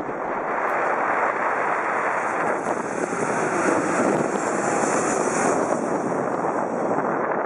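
Boeing 737-800's CFM56-7B turbofan engines passing low overhead on approach to land, gear down: a broad jet rush with a high hiss on top that swells to its loudest about four to five seconds in, then eases slightly.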